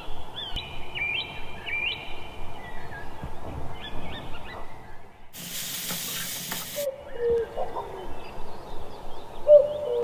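Birds calling: quick, high chirping calls in the first half and lower, hooting call notes in the second half. A steady hiss cuts in abruptly for about a second and a half midway.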